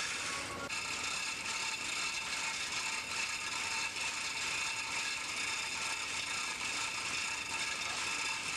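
Steady mechanical machinery noise, a continuous hiss-like din that gets a little louder just under a second in.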